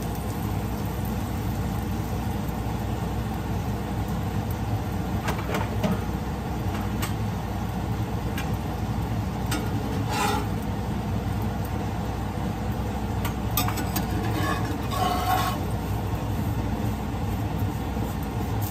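Chapatis frying in pans on a gas stove: a steady low rumble of the burners and kitchen, faint sizzling, and a few light taps and scrapes of a spatula against the pan as the flatbread is turned.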